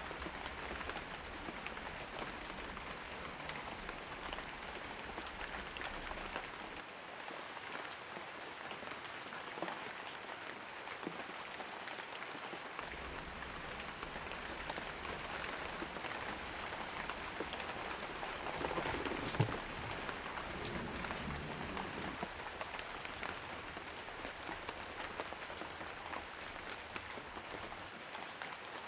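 Steady rainfall, a dense patter of many small drops. One sharp knock sounds about two thirds of the way through.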